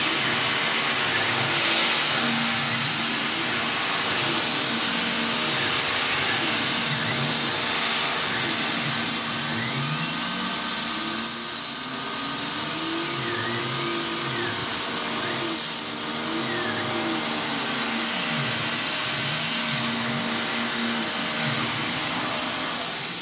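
Tormach CNC mill cutting a chamfer around the contour of an aluminium plate: a steady hiss and hum from the running spindle, with lower tones gliding up and down as the machine follows the curves of the part.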